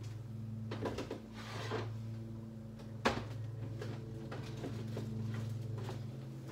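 Kitchen handling sounds over a steady low hum: a few knocks and a brief scrape about a second in, then one sharp click about three seconds in and a few lighter clicks after.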